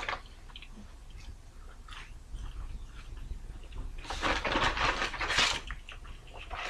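Faint clicks and scrapes of a utensil and food on a table, then a burst of paper rustling about four seconds in as a McDonald's paper bag is handled.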